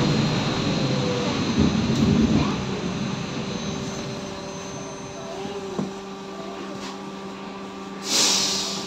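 Cabin sound of a BKM 321 trolleybus under way: a low rumble that fades over the first three seconds, over a steady electrical hum with several held tones. About a second before the end comes a short, loud hiss of compressed air.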